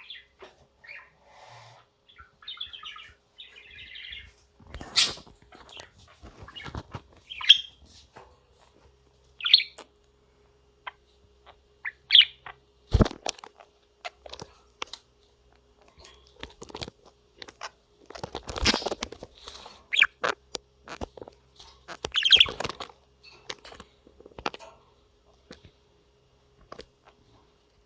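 Pet budgerigar giving short, scattered chirps, with sharp clicks and taps in between and a faint steady hum underneath.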